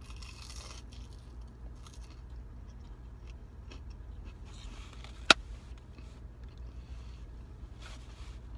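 Close-up chewing of crispy battered fried shrimp, with short bursts of crunching every couple of seconds over a steady low hum. One sharp click about five seconds in stands out as the loudest sound.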